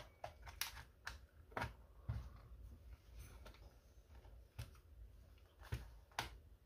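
Plastic shell of a TBS Tango 2 radio controller being handled and pried apart, giving scattered faint clicks and knocks.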